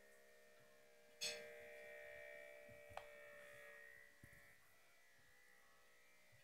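Mostly near silence. About a second in, a sharp knock sets off a faint ringing of several steady tones that dies away about three seconds later, with a light click along the way.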